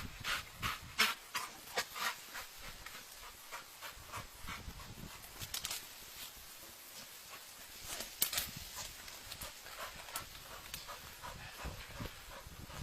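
A dog moving about: a run of short, sharp, irregular clicks, bunched most thickly about eight seconds in.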